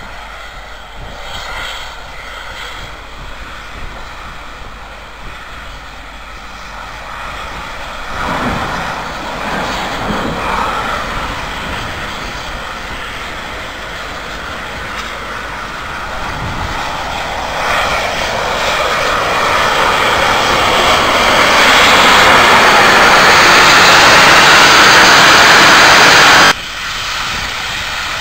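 LMS Princess Coronation Class steam locomotive 46233 approaching and running through the station, its sound building steadily as it nears. Near the end a loud rushing hiss of steam as it draws level, which cuts off suddenly.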